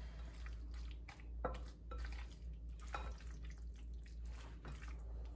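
Spatula and serrated spreader knife clicking and scraping against a glass mixing bowl as a mayonnaise-dressed chicken and vegetable filling is scooped out, a few soft taps about a second apart, over a low steady hum.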